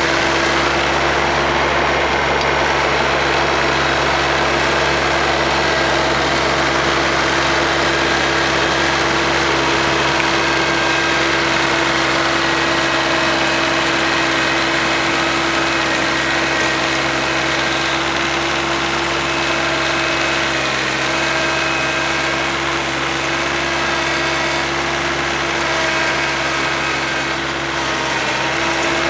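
Kioti CS2210 sub-compact tractor's three-cylinder diesel engine running at a steady speed, powering a rear-mounted 48-inch snowblower as it clears snow. The engine note holds even, with a slight dip near the end.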